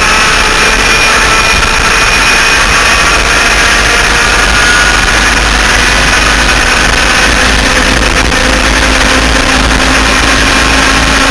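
Onboard sound of a B-Stock enduro laydown kart's twin 100cc two-stroke engines running flat out at high revs, under a heavy, steady rush of wind on the microphone at speed.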